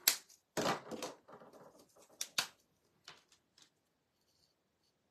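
Alcohol markers being swapped: a sharp click as a cap comes off, then clatter and rustle as pens are set down and picked up on the craft mat, with a few more clicks. Near the end comes the faint scratch of a marker tip colouring on cardstock.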